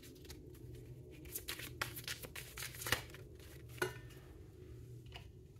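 Oracle cards being shuffled and drawn by hand: scattered light clicks and flicks of card stock, a few sharper ones, over a low steady hum.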